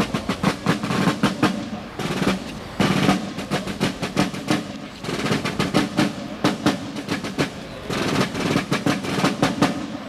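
Military snare drums playing a marching cadence: phrases of rapid strokes and rolls, one to three seconds long, broken by short pauses.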